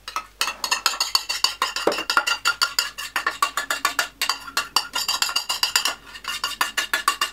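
Metal spoon scraping and knocking against a metal bowl as thick rice-flour porridge is emptied out of it, a rapid run of clinks, several a second.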